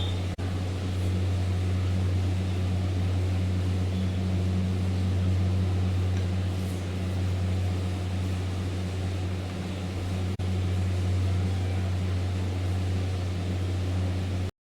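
A steady low hum with an even background hiss, unchanging throughout. It cuts out for an instant about half a second in, again about ten seconds in, and just before the end.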